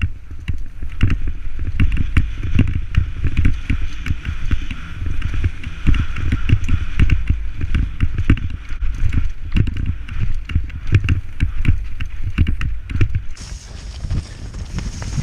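Mountain bike descending a rough, muddy trail, heard from a helmet-mounted camera: heavy wind buffeting on the microphone with constant rattling and knocking of the bike over ruts and roots. A little before the end the sound changes, with a steady high hiss coming in.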